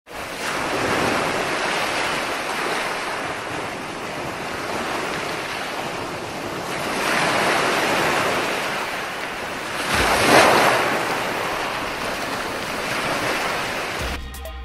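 Sea surf washing in among shoreline rocks, a steady rush that swells and ebbs, loudest about ten seconds in. Music with a beat starts near the end.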